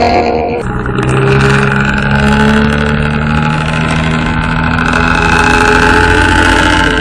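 Bus engine running through a modified 'ngorok' (snoring) exhaust. It gives a deep, pitched drone that sets in about half a second in and holds, drifting slightly in pitch.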